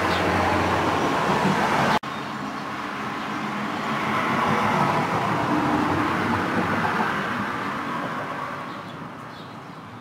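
Road traffic: a vehicle passing, its noise swelling around the middle and fading away near the end, after an abrupt break about two seconds in.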